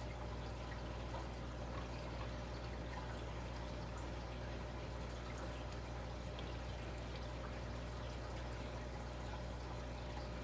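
Aquarium water trickling steadily with faint dripping, over a steady low hum.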